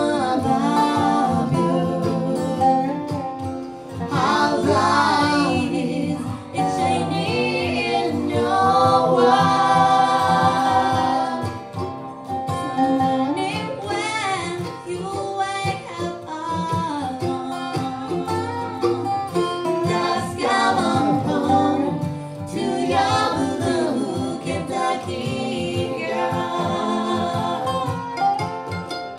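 Bluegrass band playing live: acoustic guitar, mandolin and resonator guitar accompany a singer.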